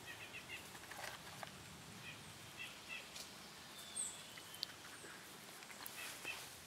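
A small stream running over rocks as a faint, even wash, with soft high chirps now and then and a few light clicks.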